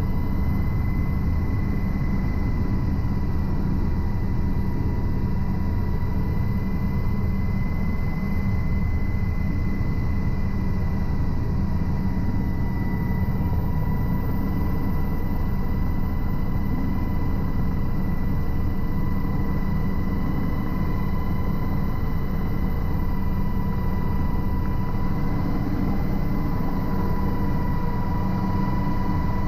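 UH-60 Black Hawk helicopter heard from inside the cockpit in flight: a constant drone of the turbines and rotor with a steady high whine over it.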